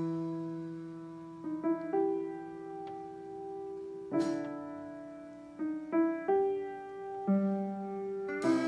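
Piano music: slow chords struck and held to ring on, with a new chord or note every second or so.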